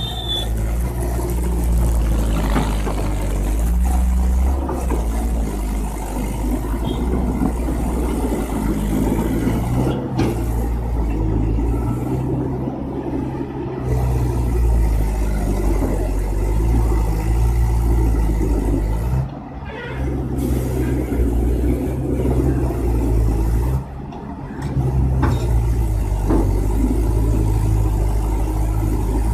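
Mahindra tractor's diesel engine labouring under a heavily overloaded log trailer, heavy enough to lift the tractor's front wheels. The engine note shifts up and down, with two brief dips in level late on.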